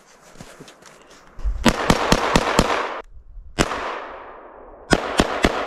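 SKS semi-automatic rifle (7.62×39mm) firing rapid celebratory shots: a quick string of about five, a single shot a second later, then four more in quick succession, each trailing off in a long echo.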